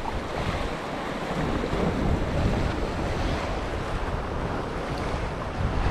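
Sea waves washing on the shore, with wind buffeting the microphone: a steady rush with a gusty low rumble.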